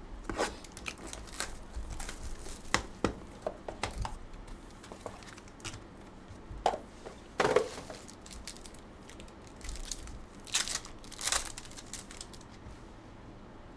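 Hands opening a sports-card hobby box and handling its wrapped packs: a string of light knocks and taps of cardboard and plastic, with crinkling wrapper noise and a few louder rips about seven and eleven seconds in.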